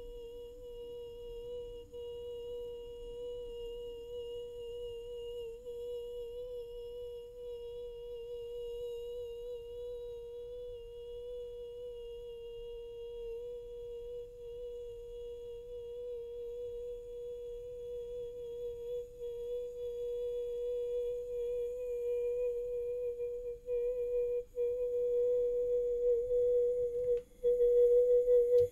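A woman's voice holding one long, high-pitched 'boiii' note for the 'yee boi' challenge. It grows louder and wavers with short breaks over the last few seconds as her voice gives out.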